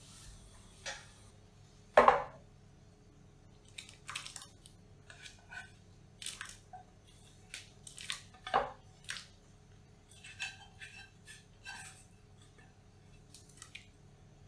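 Kitchen handling sounds: irregular knocks and clinks of utensils and dishes, the loudest a ringing knock about two seconds in and another about eight and a half seconds in, with softer clicks and rustles between.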